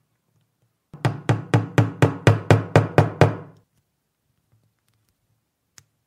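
A quick run of about ten evenly spaced drum beats, about four a second, for roughly two and a half seconds, then a single faint click near the end.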